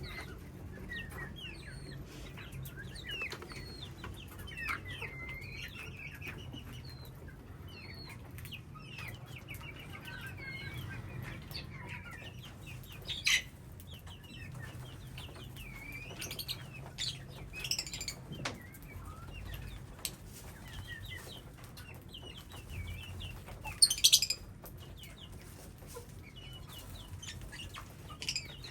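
A colony of caged parrots chirping and calling, with many short rising and falling calls. There are sharp, louder shrieks about 13 seconds and again about 24 seconds in.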